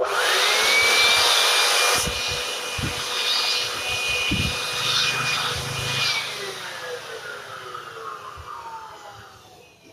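Handheld electric air blower switched on, its motor whine rising quickly to a steady high pitch with a loud rush of air, blowing dust out of a speaker's magnet gap. About six seconds in it is switched off and the whine falls away slowly as the motor spins down.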